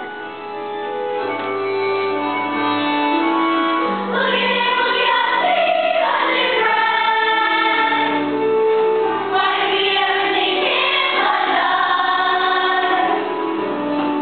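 Musical-theatre ensemble singing together with instrumental accompaniment. Held accompaniment notes come in about a second in, and the full group of voices joins about four seconds in.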